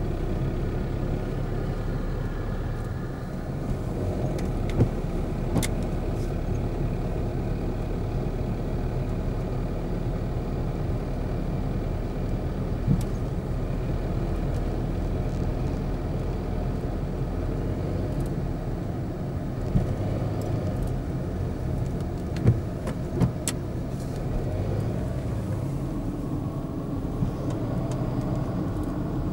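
A moving car's steady engine and tyre rumble, with a few brief sharp clicks scattered through it.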